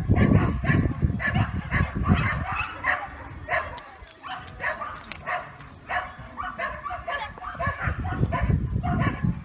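Dog barking repeatedly in quick, high barks, with a short lull about four seconds in, over a low rumble that is strongest at the start and near the end.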